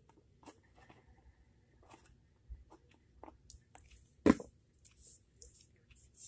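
Small hard plastic toy figures being handled: scattered light clicks and rustles, with one sharp knock a little past four seconds in.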